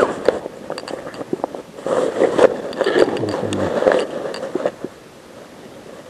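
Clothing and gear rubbing and scraping against a body-worn camera's microphone as the wearer moves, with scattered clicks and knocks; it is loudest in two stretches in the middle and dies down near the end.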